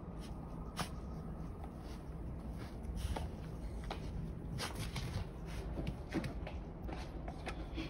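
Soft, irregular crunching and swishing of feet moving through deep powder snow, over a low steady rumble.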